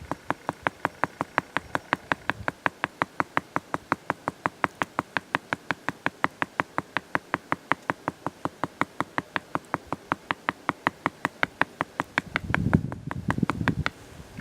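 Hammerstone lightly pounding a yucca leaf on a flat stone to separate its fibres: a steady run of sharp stone knocks, about five a second, which stops about two seconds before the end and gives way to a brief low rustling.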